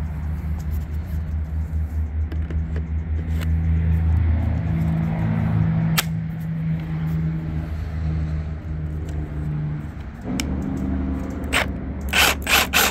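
A low, steady engine hum that swells in the middle and eases off about ten seconds in. Near the end come a few sharp clicks and scrapes of handling.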